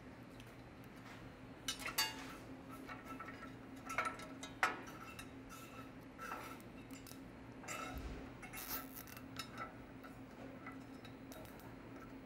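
Faint clicks and light clinks of a plastic zip tie being threaded and pulled tight on the steel cross arm of a car lift, tying the secondary lock open, with a steady low hum underneath.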